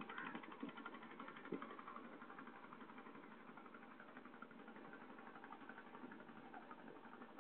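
A faint engine running steadily, with a fast, even rattle.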